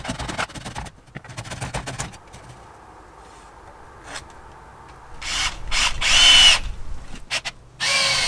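Cordless drill boring into the top of a wooden post for a dowel: a run of the motor whine about five to six and a half seconds in, the loudest sound, then short bursts and another run starting just before the end with the pitch dropping as the bit bites.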